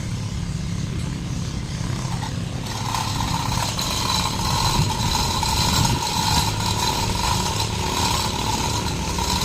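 A motor running steadily with a low hum. About two and a half seconds in, a higher steady whine with a hiss joins it and keeps going.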